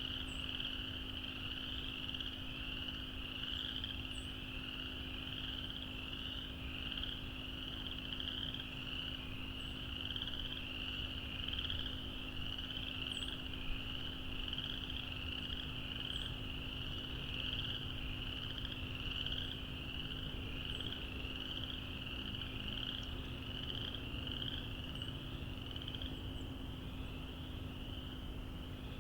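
A dense chorus of frogs calling continuously, many short rising calls overlapping into one unbroken high-pitched din, over a faint steady low hum.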